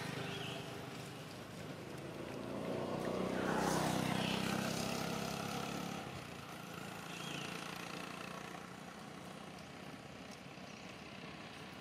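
A motor vehicle, likely a motorbike, passing along the road, its engine noise swelling to its loudest about four seconds in and then fading away, with a fainter swell a few seconds later.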